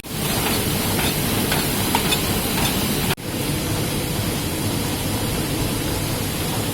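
Heidelberg Speedmaster SM72 six-colour perfecting sheetfed offset press running steadily in production. The sound drops out for an instant about three seconds in.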